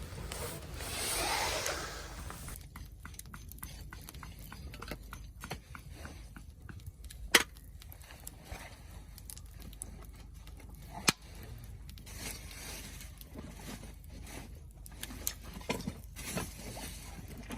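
Wood campfire crackling, with scattered small crackles and two sharp loud pops, about seven and eleven seconds in. A short rushing noise fills the first two seconds.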